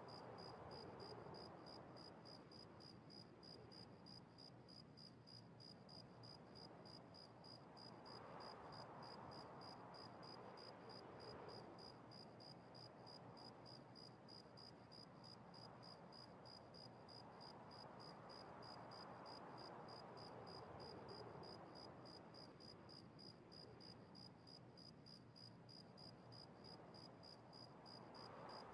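Near silence: faint room hiss that swells and fades slowly, about every ten seconds, with a faint, rapid, even high-pitched pulsing.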